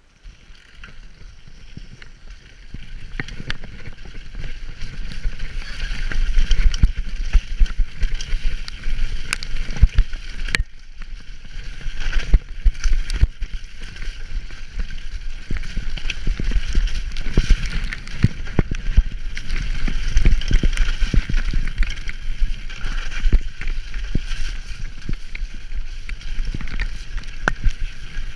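Downhill mountain bike descending a muddy trail at speed: tyres running over wet dirt, with frequent knocks and rattles from the bike over bumps and wind rumbling on the camera microphone. It starts quietly, then grows louder a few seconds in as the bike picks up speed.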